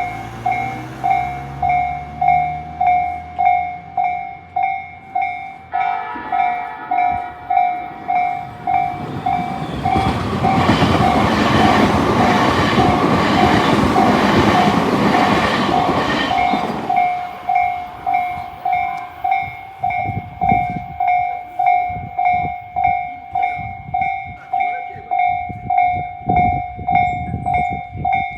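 Japanese level-crossing alarm: a slow-tempo electronic bell of the Tobu Tojo Line type, ringing steadily at about one and a half strikes a second. About ten seconds in, an electric train passes over the crossing for some six seconds with loud rumbling and clickety-clack of the wheels, and then the bell rings on alone.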